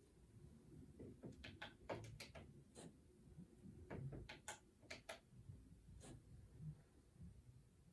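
Mobitec flip-dot destination display clicking as its dots flip to rewrite a line of text. A quick, faint run of small clicks starts about a second in and lasts to about five seconds, with one more click near six seconds.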